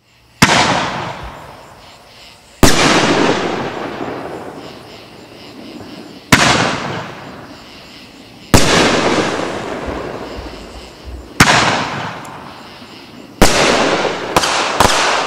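A Rolling Thunder 500-gram consumer firework cake with 3-inch shots firing. Eight sharp bangs come a few seconds apart, each trailing off over a couple of seconds, and the last three come in quick succession.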